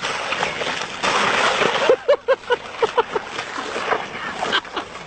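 Water splashing and sloshing, with a quick run of short pitched squeaks in the middle.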